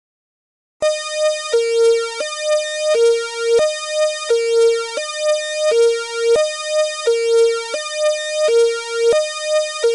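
Fire truck's electronic hi-lo siren: two steady tones, a higher and a lower, alternating with each held about two-thirds of a second. It starts about a second in.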